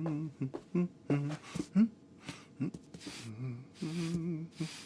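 Cartoon cat voice effects: a string of short, wobbly mews and murmurs with brief breathy noises between them.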